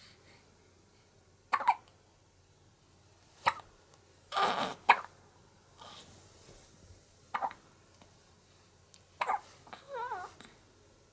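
One-month-old baby hiccuping after a feed: about five short, sharp hiccups roughly every two seconds. In the middle there is a longer breathy sound, and near the end a brief wavering whimper.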